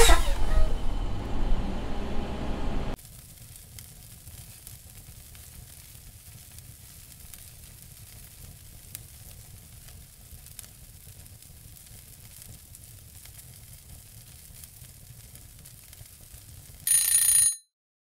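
A loud, low noise for about the first three seconds, which stops abruptly. It gives way to a faint steady hiss with scattered faint ticks. Near the end a small bell rings briefly, a bright ding like a kitchen timer, and is cut off short.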